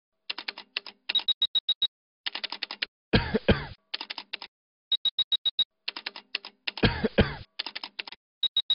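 Typewriter-style typing sound effect: quick runs of sharp key clicks, several a second, with short pauses between runs. It is broken twice by a longer, louder noisy stroke, about three seconds in and again near seven seconds.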